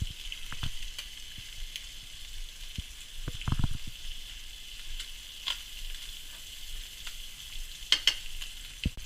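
Trout and frog legs frying in hot oil in a pan: a steady sizzle with scattered crackles and pops, sharpest about eight seconds in. A dull low bump about three and a half seconds in.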